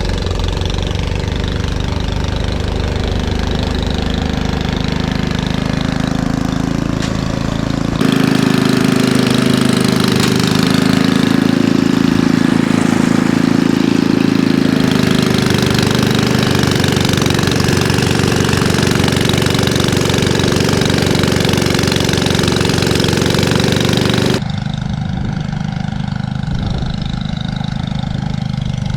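Single-cylinder four-stroke engine of an Ariens Classic 24-inch two-stage snow blower running steadily under load as it works through deep, heavy drifted snow. The sound changes abruptly twice, once about a third of the way in, when it grows louder with more hiss, and again near the end.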